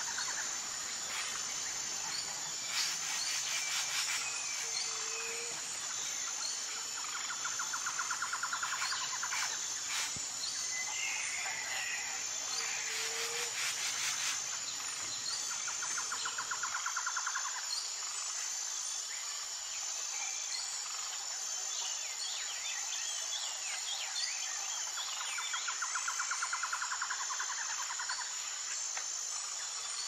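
Outdoor nature ambience: a steady, high, evenly pulsing insect trill runs throughout, with birds chirping here and there. A rapidly pulsing call in a lower register comes and goes several times.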